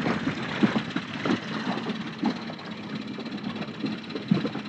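Small outboard motor on an inflatable dinghy running steadily under way, with short irregular knocks over the engine hum.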